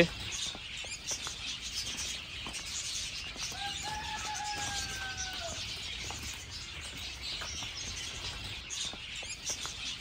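A flock of small aviary birds chirping continuously in many overlapping high calls, with one longer drawn-out call about four seconds in.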